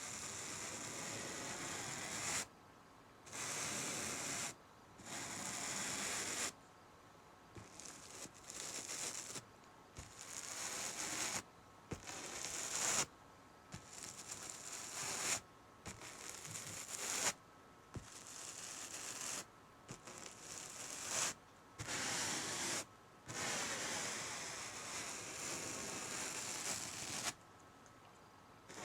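A bristle paintbrush swept back and forth over canvas, making dry scratchy strokes of one to three seconds with short pauses between them, and a run of quicker, shorter strokes in the middle.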